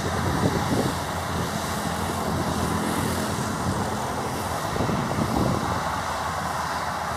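Cessna 208B Grand Caravan's single turboprop engine at takeoff power as the aircraft runs down the runway: a steady engine and propeller drone. Short gusts of wind rumble on the microphone near the start and again about five seconds in.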